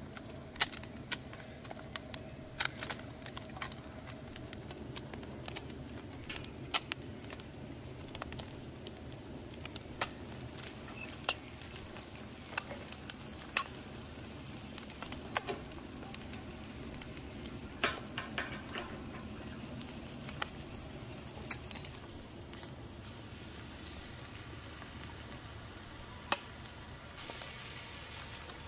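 Steady sizzling hiss broken by irregular sharp pops and crackles, from whole chickens and vegetables roasting on hooks around a wood-fired metal barrel.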